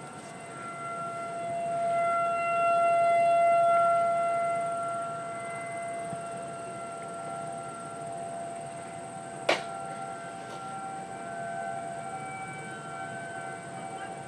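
Federal Signal Model 2001 outdoor warning siren sounding its monthly test as one steady wail. It swells loudest a couple of seconds in, then settles back to a lower level. A single sharp knock comes about nine and a half seconds in.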